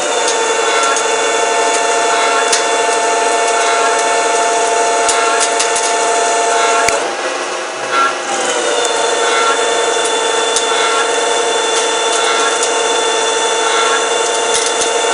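CNC lathe machining, a steady whining tone over a hiss of cutting. It stops with a click about seven seconds in, then starts again about a second and a half later and runs on.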